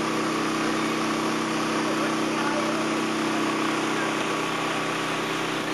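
A steady machine hum with an even hiss, holding the same pitch and level throughout.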